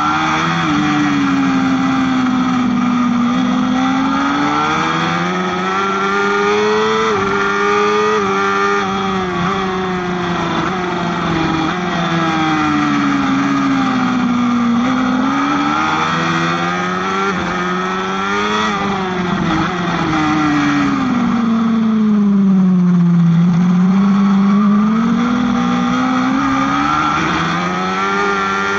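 Kawasaki ZX-10RR inline-four superbike engine at racing speed, heard on board: it revs up through the gears with a short dip in pitch at each upshift, drops in pitch as the bike slows for corners around the middle and about three-quarters through, then climbs again.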